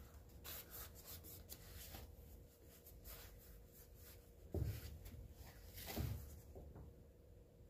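Blue paper shop towel rubbing across the freshly lapped cylinder head face of a Kawasaki FH721D engine in short, faint strokes, wiping off the lapping residue. Two dull knocks come about four and a half and six seconds in.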